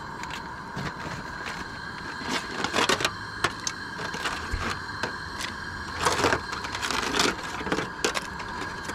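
Cleaned Dungeness crab halves dropped into a pot of boiling water: the shells clack and knock, and there are a few louder splashes about 3, 6 and 7 seconds in.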